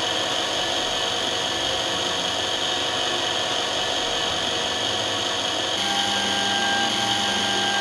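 Small electric drill motor of a DM-200 optical lens drilling machine running steadily, its bit drilling a hole through a spectacle lens. About six seconds in, a further steady lower hum joins the sound.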